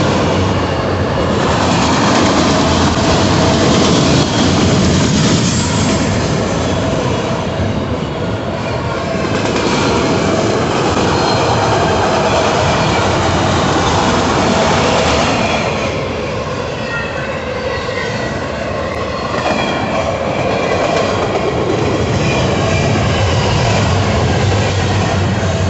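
Long freight train of autorack cars rolling past at close range: a loud, steady rumble and clatter of steel wheels on rail. Thin, wavering wheel squeal rises above it in the second half.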